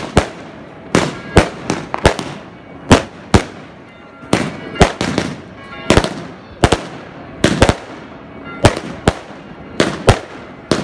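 Aerial fireworks shells bursting overhead: a rapid, irregular run of sharp bangs, about two a second, each trailing off in a short echo.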